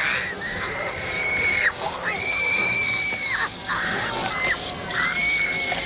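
A young woman screaming in terror: a run of long, high held screams, each up to about a second and a half, with shorter cries between them, over a thin steady high tone.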